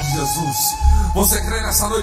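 Church worship music with a deep sustained bass note that comes in just under a second in, and a man's voice over it through the microphone and PA.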